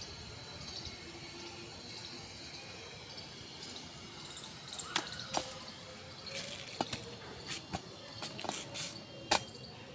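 Fingertip tapping on a smartwatch's touchscreen and body: a handful of short sharp ticks from about five seconds in, irregularly spaced, the loudest near the end. Under them is a faint steady outdoor background with some thin high tones.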